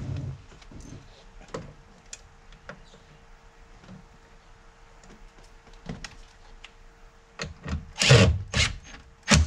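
Faint clicks and taps of a speaker being handled against a truck's bare door, then a cordless drill/driver running in a few short bursts over the last two seconds, driving the screws that mount the new door speaker.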